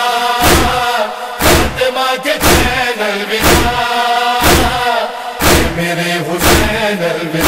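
A Shia noha lament sung by voices in long held notes, over a steady beat of matam chest-beating strikes about once a second.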